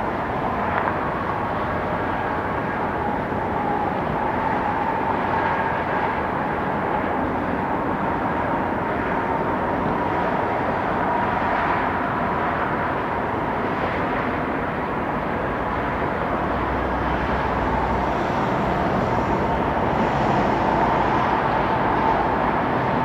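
Whelen Vortex R4 outdoor warning siren sounding the steady alert signal: one loud held tone that wavers only slightly around 1 kHz, with echoes and other sirens sounding farther off.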